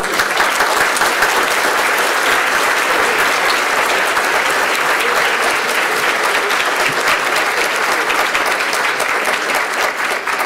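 Audience applauding, many hands clapping at once; the applause starts suddenly and holds steady.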